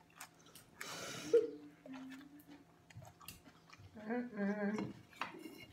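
Close-up chewing and mouth sounds, with scattered small wet clicks and a breathy burst about a second in. A short stretch of voice comes about four seconds in.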